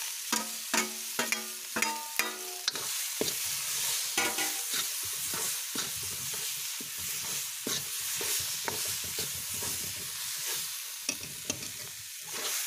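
Spinach greens sizzling in hot oil in an iron kadhai while a steel ladle stirs and scrapes through them, with clinks and scrapes against the pan. A run of short, ringing scrapes in the first couple of seconds is the loudest part.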